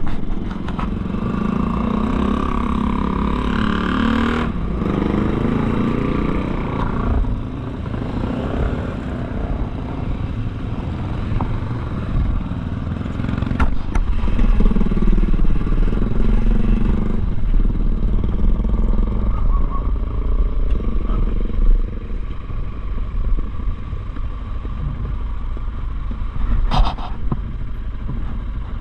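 Motorcycle engine running while riding, its revs rising and falling, over a steady low rumble.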